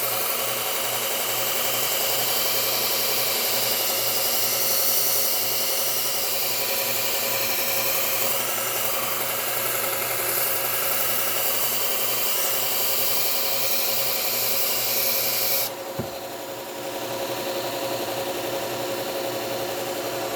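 Steel lopper blade being ground on a Bucktool slow-speed belt sander with a Cubitron 120-grit belt: a steady grind over the running motor as the edge is taken down past its nicks. About three quarters of the way in the grinding stops abruptly, leaving the sander's motor running on its own.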